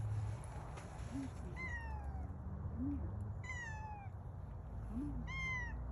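Domestic cat stuck up a tree, meowing three times, each cry high and falling in pitch.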